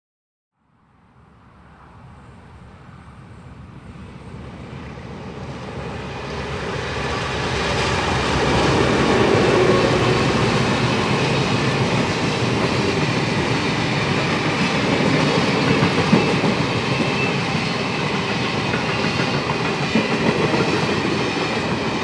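SSR 442s2 and GM10 diesel locomotives hauling a rail train approach and pass, growing louder over the first eight seconds or so, then the rail-laden wagons roll by with a steady clatter of wheels on the track.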